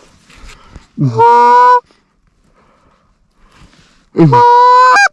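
Two long honks on a Canada goose call, blown close to the microphone. Each sweeps up from a low start and then holds a steady pitch, and the second ends in a quick break. They are very loud.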